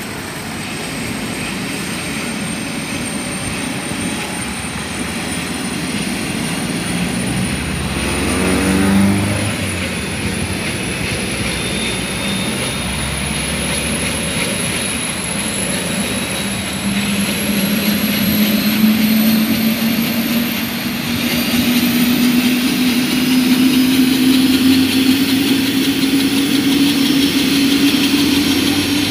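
Helicopter turbine engine and main rotor running on the ground, the turbine's high whine rising slowly and steadily in pitch as it spools up toward takeoff, with a lower rising hum joining about halfway through. A brief louder swell passes about eight seconds in.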